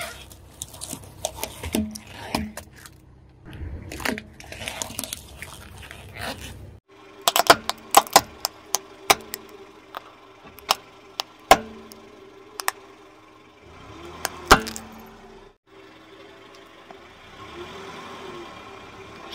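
A car tyre rolling slowly over plastic objects and crushing them. First comes a dense run of crackling and crunching as liquid-filled plastic syringes break. After a brief drop, a string of loud, separate sharp cracks follows as plastic toy whistles snap under the tread.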